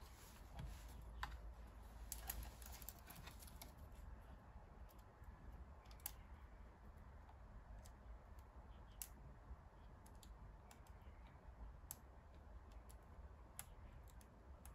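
Near silence with faint, scattered small clicks and light taps: a quick cluster in the first few seconds, then single clicks every second or two, like small parts of the scan tablet being handled.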